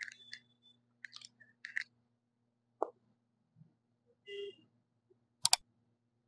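Faint small ticks and scrapes as the nozzle of a glue tube is worked along the edge of a phone's metal frame, over a low steady hum. About five seconds in come two sharp, loud clicks, which are the mouse-click effect of an on-screen subscribe-button animation.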